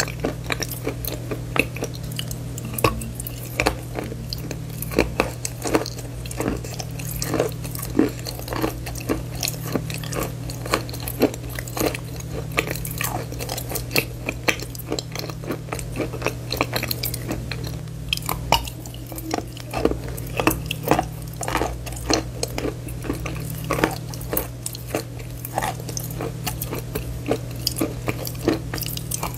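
Close-miked chewing and crunching of brown bar chalk: a steady run of small crisp crunches, with a fresh bite taken near the end, over a steady low hum.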